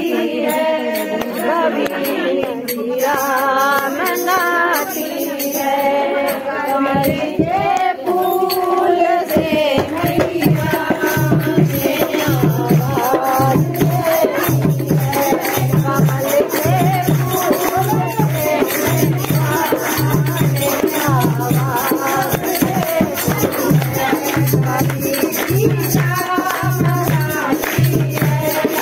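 Hindi devotional bhajan: a voice singing a melody over rattling hand percussion, joined about ten seconds in by a steady low drum beat roughly once a second.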